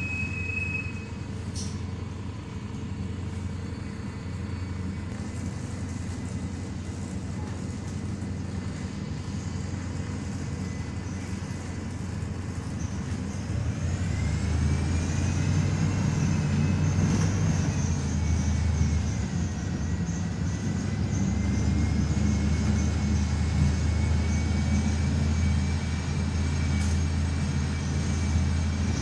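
Volvo B290R city bus heard from inside the cabin: the engine runs low and steady while the bus waits in traffic, then grows louder about halfway through as the bus pulls away. A whine comes in with the pull-away, rising and falling, then holding and slowly climbing as the bus gets under way.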